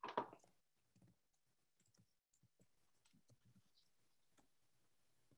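Near silence in a small room, with faint scattered clicks and one brief soft noise right at the start.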